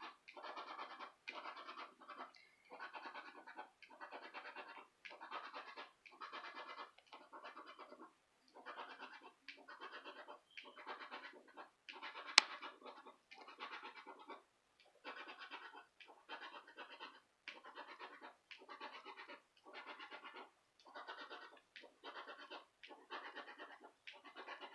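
Scratch-off lottery ticket being scratched off in short, repeated strokes, about two a second. One sharp click about halfway through.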